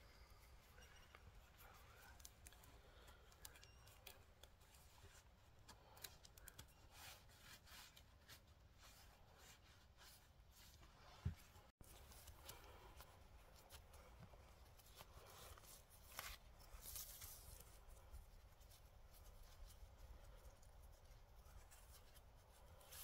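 Faint rustling and scraping of paracord being wrapped and pulled around wooden poles to lash a tripod, with many small clicks of cord on bark; one short knock a little past halfway.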